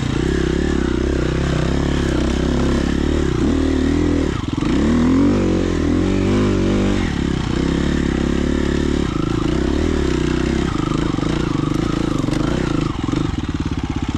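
Dirt bike engine running at low trail speed, the revs rising and falling as the throttle is worked, with a brief louder rev about halfway through.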